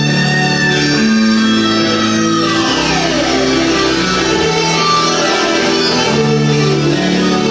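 Recorded music with sustained low notes under a plucked-string melody. A falling sweep comes about two and a half seconds in.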